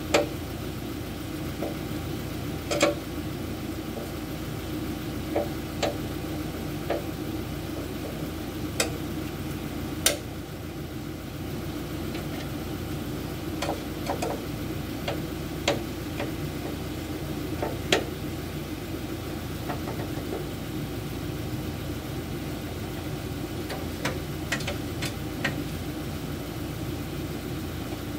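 Sharp metal clicks and knocks at irregular intervals, about a dozen of them, from hand tools working on a combine harvester's cutter-bar finger guides. A steady engine hum runs underneath.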